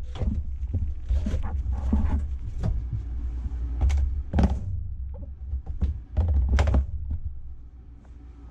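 Irregular thumps and knocks, about a dozen, over a steady low rumble.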